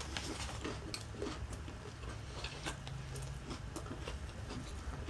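Close-miked chewing of a crispy fried chicken sandwich: irregular small crunches and clicks of the breading, over a low steady hum.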